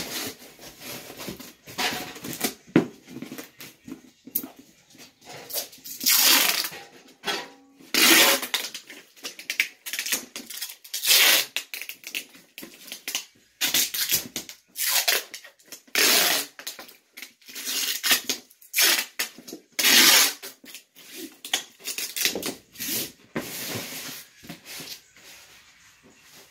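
Cardboard moving box being closed and sealed: packing tape pulled off the roll again and again in noisy strips of half a second to a second, between shorter rustles and knocks of the cardboard flaps.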